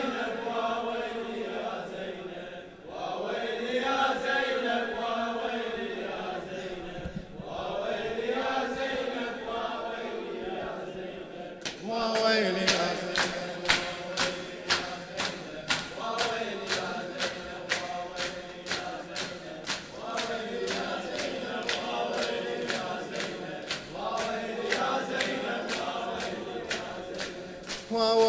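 Crowd of men chanting a Shia Muharram lament in unison, with a slow rising-and-falling melody. About twelve seconds in, a steady beat of chest-slapping (latm) joins the chant at two to three slaps a second.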